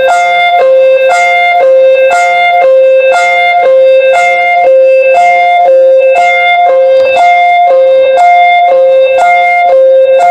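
Loud emergency-alert alarm tone: two notes, a higher and a lower, alternating quickly and evenly over and over, each struck with a sharp plucked, guitar-like attack.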